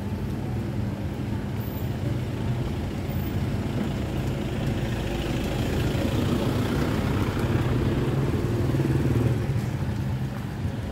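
Street traffic: engines running, with one vehicle growing louder from about five seconds in and fading again near nine seconds as it passes close.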